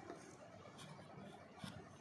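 Near silence: faint room tone with two soft handling noises, one a little before a second in and one near the end.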